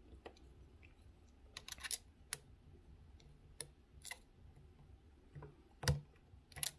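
Irregular light metallic clicks and ticks of a steel hook pick and tension wrench working the pins inside a Best Cormax SFIC lock cylinder. There is a small cluster about two seconds in, and the loudest clicks come near the end.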